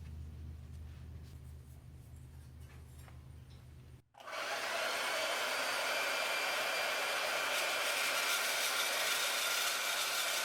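A low steady hum, then about four seconds in a power tool starts running with a loud, steady hissing whine that holds without a break.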